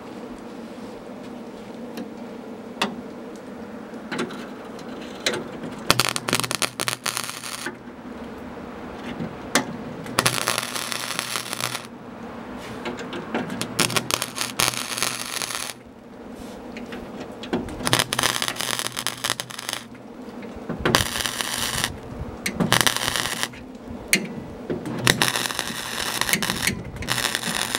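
MIG welder filling holes in the sheet-steel inner door panel: a crackling sizzle in several separate bursts of one to two seconds, over a steady hum.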